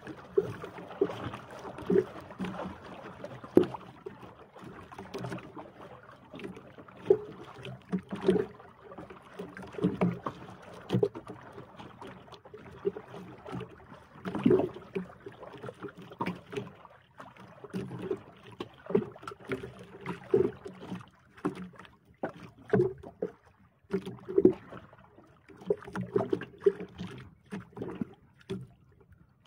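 Water slapping and knocking against the hull of a small outrigger boat on a choppy sea: irregular hollow knocks, often one or two a second, over a steady wash of water.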